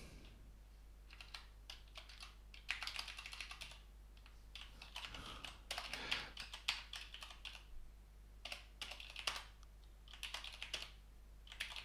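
Computer keyboard typing: clattering keystrokes in short bursts with pauses between them, as code is edited.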